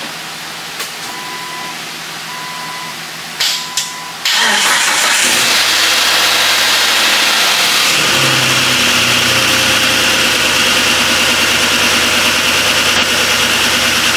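Three short beeps, then the turbocharged Jeep Wrangler TJ's 4.0 inline-six catches about four seconds in and runs steadily at a smooth idle. It is the first start after a new cam and lifters, with the lifters left dry.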